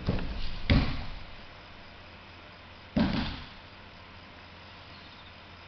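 Bodies falling on tatami mats during martial-arts throws: a heavy thud under a second in, and another thud about three seconds in.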